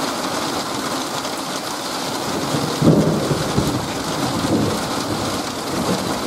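Heavy rain falling steadily in a thunderstorm. About three seconds in, a sudden clap of thunder breaks out and rumbles on for a couple of seconds.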